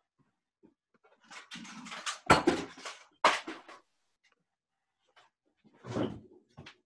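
Off-camera rummaging and handling of objects, with two sharp knocks about two and three seconds in and another scrape-like burst near the end, as a ruler is fetched.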